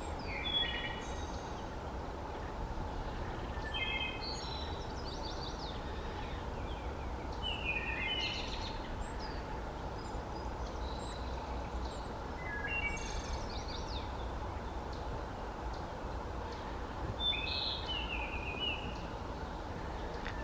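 Wood thrush singing flute-like song phrases, five in all, about four seconds apart. Each phrase is a few short notes followed by a higher trill. Steady background noise runs underneath.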